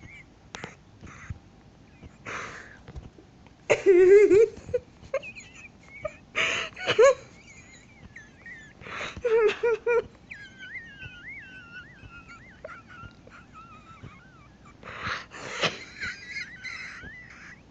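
A person's wheezing laugh, coming in fits: gasping, breathy bursts, some with a voiced hoot, and between them long, high, squeaky wheezes.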